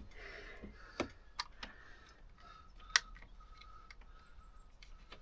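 A few sharp plastic clicks and taps as a dashcam is handled and fitted onto its windscreen mount; the sharpest click comes about three seconds in.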